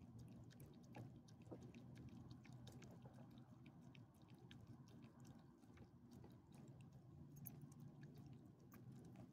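Small dog eating soft chicken from a person's palm: faint wet chewing and lip-smacking clicks, scattered irregularly, over a low steady hum.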